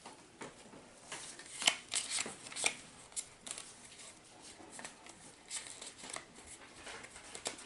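Pokémon trading cards being handled and slid past one another by hand: a run of crisp card clicks and scrapes, a few sharper ones about two seconds in.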